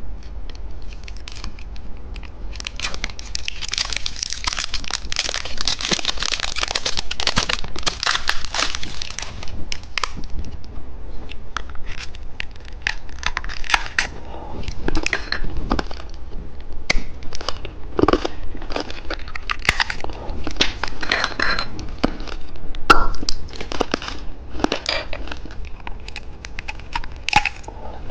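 Plastic candy wrapper on a dice-shaped candy being torn open and crinkled. A dense stretch of crackling about three seconds in is followed by scattered sharp crackles and clicks as the packaging is handled.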